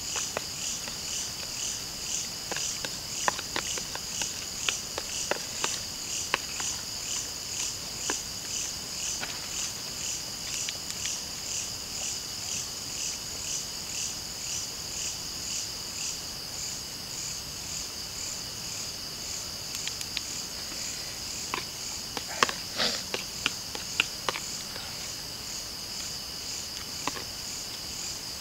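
Night insects chirping in a steady, evenly pulsing high-pitched chorus. Over it come scattered sharp clicks of a metal spoon against a plastic plate, louder in a cluster about two-thirds of the way in.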